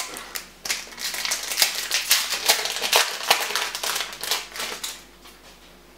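Foil Yu-Gi-Oh booster pack wrapper crinkling and crackling as it is torn open and handled, a dense run of sharp rustles that dies down about five seconds in.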